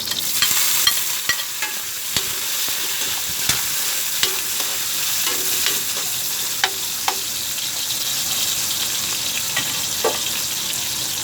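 Garlic, onion and freshly added tomato sizzling in hot oil in a pan, with a spatula stirring and scraping, clicking against the pan now and then.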